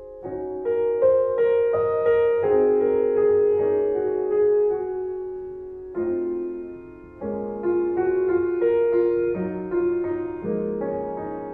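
Background piano music: a slow melody of struck notes and chords, each left to ring and fade.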